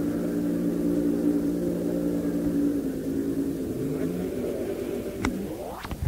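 Inboard racing hydroplane engine running at high revs, a steady engine note that slowly fades. Near the end a rising whine sweeps up and a few sharp clicks cut in.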